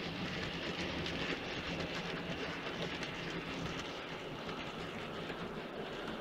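OO-gauge model train (a Bachmann GWR 'Dukedog' locomotive hauling wagons) running along the layout track: a steady hum from the motor with the rolling sound of small wheels on the rails.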